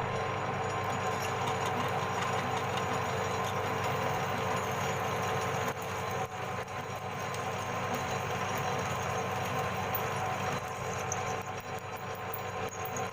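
Metal lathe running steadily, its motor and drive giving a continuous hum with several steady whining tones, and a brief dip in level about six seconds in.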